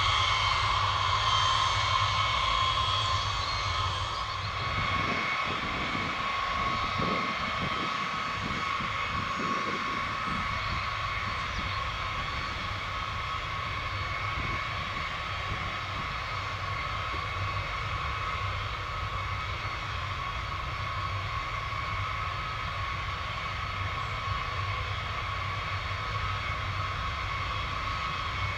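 Boeing B-52 bombers' Pratt & Whitney TF33 turbofan engines running at low power as they taxi: a steady jet whine over a low rumble, a little louder in the first few seconds.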